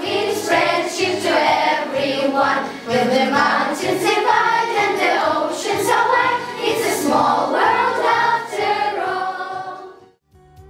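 A group of girls singing a song together in chorus; the singing stops shortly before the end.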